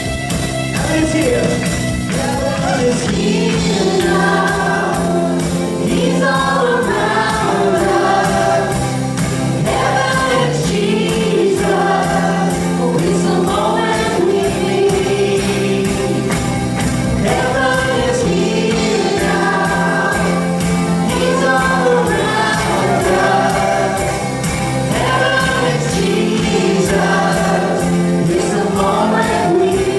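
Live gospel worship music: a small band with electric guitar and keyboard playing to a steady beat, with several women singing the melody together into microphones from about a second and a half in.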